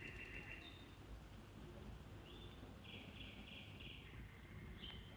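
Faint outdoor ambience: high chirring calls come in short bursts of about a second, several overlapping, over a low steady rumble.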